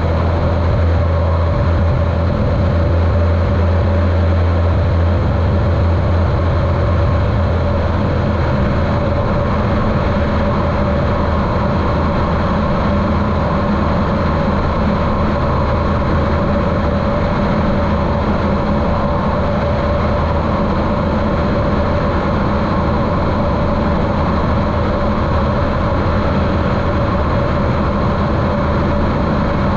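Continental O-200 engine and propeller of a Cessna 150L running steadily in flight, heard muffled through a GoPro's waterproof case.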